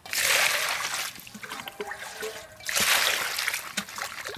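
Water gushing and splashing into a stainless steel bowl in two spells, about a second each, with light knocks and sloshing in between as a hand swishes the prawns around to wash them.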